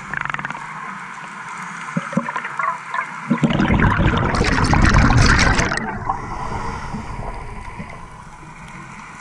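Scuba diver breathing through a regulator underwater: a quiet hiss with a few clicks, then about three and a half seconds in a loud gurgling rush of exhaled bubbles that lasts about two and a half seconds and fades back to the hiss.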